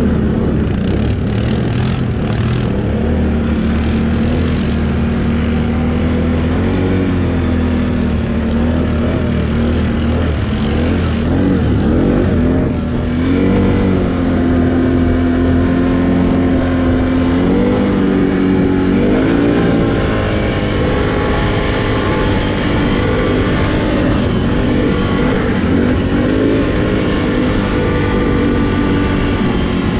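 ATV engine running hard, its revs rising and falling several times.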